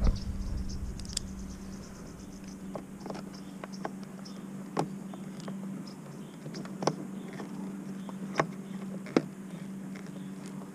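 Scattered small clicks and taps, about eight or nine at irregular times, as a hand works a plastic cruise control switch and its wiring connector behind a steering wheel spoke. A steady low hum runs underneath.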